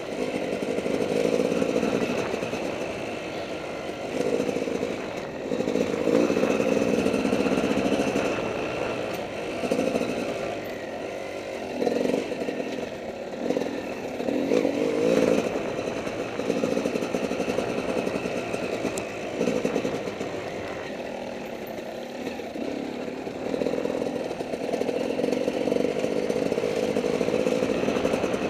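Dirt bike engine revving in repeated surges as the throttle is opened and closed, the loudness rising and falling every second or two while riding.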